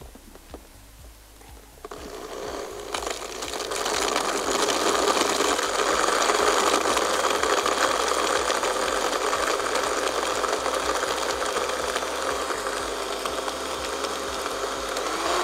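Countertop blender starting about two seconds in and running steadily, blending cashew apples with plenty of ice and mineral water into a slush. It builds over the first couple of seconds and then holds a steady whirr.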